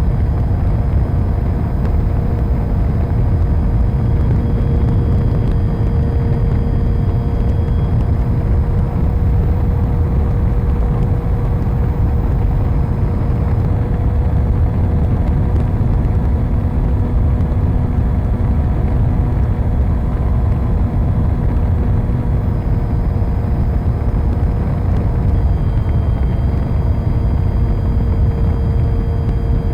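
Model airplane's motor and propeller running at a steady pitch, picked up by a camera mounted on the plane, under a heavy low rumble.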